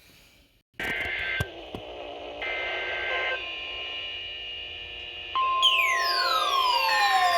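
Emergency Alert System broadcast tones. After a brief silence come two short bursts of steady, shrill paired tones, the coded alert header. About five seconds in, a steady single-pitch alert tone starts, joined by loud tones sweeping down in pitch.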